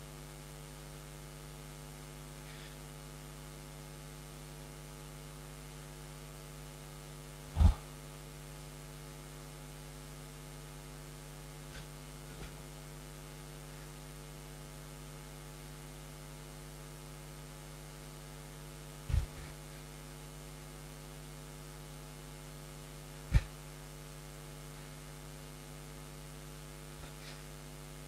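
Steady electrical mains hum, broken by a few dull low thumps several seconds apart.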